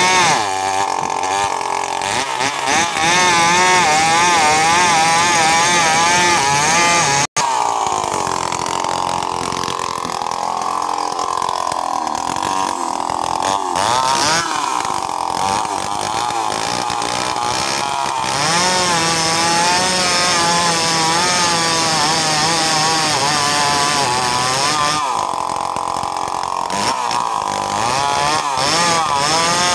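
Chainsaw engine running hard while cutting, its pitch wavering up and down as the chain bites into the wood. There is a momentary cut-out about seven seconds in.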